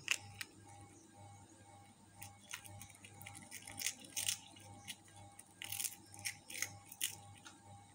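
Cat chewing chips: irregular crisp crunches, busiest in the second half, over a steady low hum.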